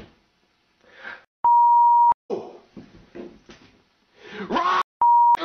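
Censor bleeps: a steady high beep tone held for about two-thirds of a second, then a shorter one near the end, covering a man's swearing. Short bits of his shouting voice come between them.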